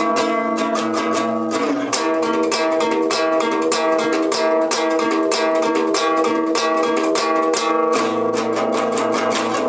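Guitar track: a plucked guitar playing a steady run of quickly repeated picked notes over held chords, with a lower bass note coming in about a second in and again near the end.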